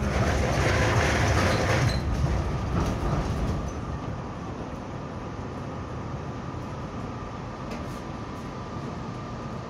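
Inside a tram as it runs along the track: steady wheel and rail rumble, louder for about the first two seconds and then settling to an even level, with a faint steady whine throughout.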